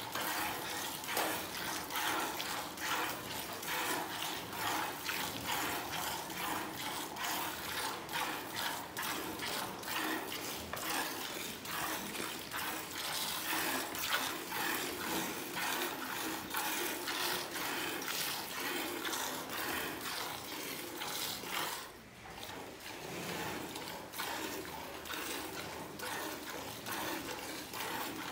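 Cow being milked by hand: streams of milk squirting into a steel pail part-full of milk in a quick, steady rhythm, with a brief pause about three-quarters of the way through.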